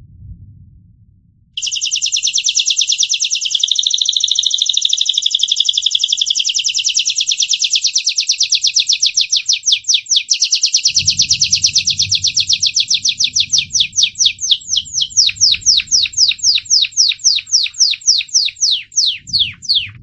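Gloster canary singing one long, rapid trill of repeated high notes. It starts about a second and a half in, and from about two-thirds through it slows into separate down-sweeping notes, ending on a falling note.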